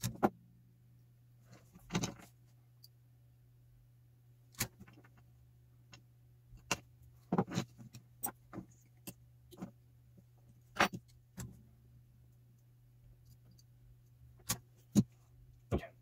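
Handling noise: a dozen or so irregular clicks and light knocks as an opened die-cast metal cable TV tap and hand tools are picked up, turned and set down on a wooden workbench. A faint steady low hum runs underneath.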